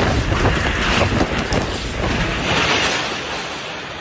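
Strong storm wind blowing with loud rushing noise and a constant clatter of rattles and knocks, easing slightly near the end.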